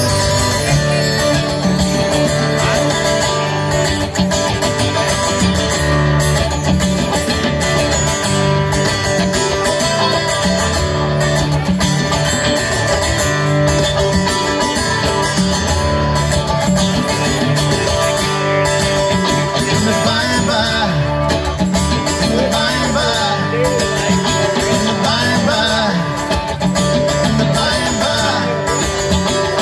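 A live band playing an instrumental passage of a song, with electric and acoustic guitars and congas.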